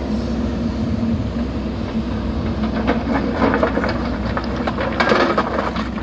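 JCB backhoe loader's diesel engine running steadily under load as the arm swings back. From about three seconds in, its bucket scrapes and clatters into a pile of broken stone.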